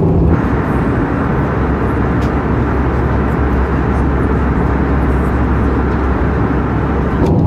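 Airbus A320-214 cabin noise during the descent: a steady roar of airflow and engines, heaviest in the low range. A higher hiss laid over it cuts off just before the end.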